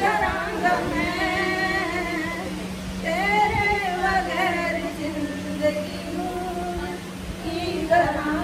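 A woman singing solo into a handheld microphone in long, drawn-out phrases with brief breaks between them, over a steady low hum.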